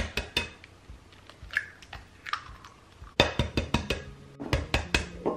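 Eggs tapped and cracked against the rim of a glass mixing bowl: scattered sharp clicks, with a quick run of them about three seconds in.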